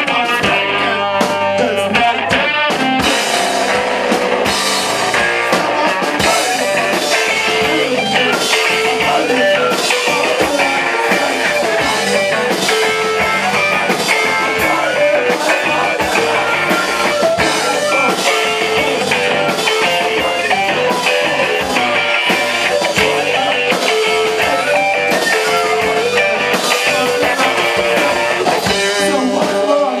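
Live rock band playing loudly: electric guitar and drum kit with steady drum and cymbal hits, and a singer's voice over the top.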